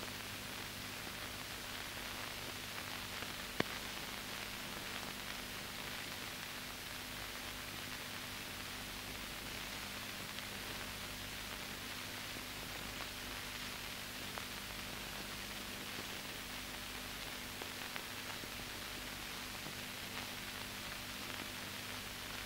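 Steady hiss with a low hum and a single click about three and a half seconds in: the blank soundtrack of an old film transfer, with no speech or music on it.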